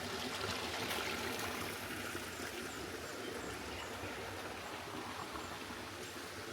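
Small forest stream running steadily over its bed, a continuous babbling trickle of shallow water.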